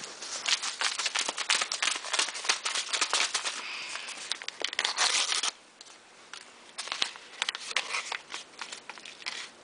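Crinkling and rustling of a paper cheese-powder packet from boxed macaroni and cheese being handled, with dense crackly clicks. It goes quieter about five and a half seconds in, leaving only a few scattered clicks.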